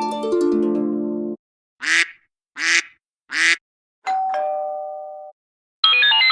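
Phone ringtones and notification sounds played one after another. A harp-like melody ends about a second and a half in. Then come three short, quick swelling tones, and a single ding that fades away. Near the end a new busy, chiming ringtone melody begins.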